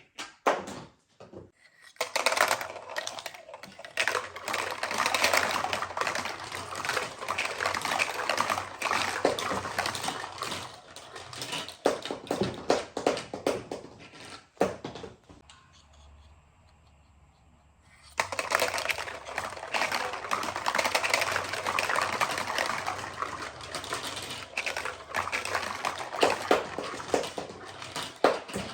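Many marbles clattering and clicking as they roll down a marble run built from plastic magnetic tiles and tubes. After a few scattered clicks, the clatter runs dense and rapid for a long stretch, drops to a brief lull about halfway through, then starts up again and stops just before the end.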